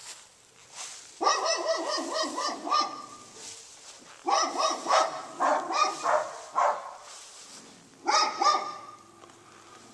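A dog barking in three bouts of rapid, repeated barks: two longer runs and a short burst near the end.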